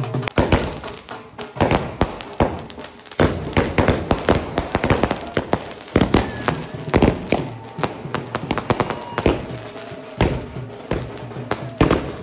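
Firecrackers going off in rapid, irregular bangs and crackles, with band music and drums playing underneath.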